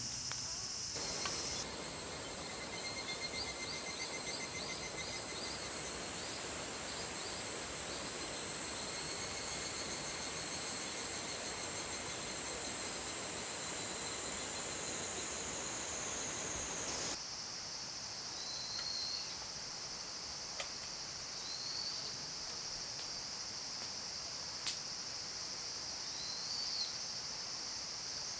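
Insects trilling steadily and high-pitched in the evening. A broad steady hiss runs under them for the first half or so, then stops abruptly, leaving the trilling with a few faint chirps and a couple of single sharp clicks.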